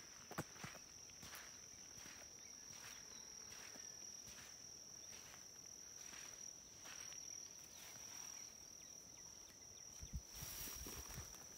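A steady, high-pitched insect trill, with soft footsteps swishing through tall grass about one step every 0.7 s. A couple of low thumps and a louder rustle come about ten seconds in.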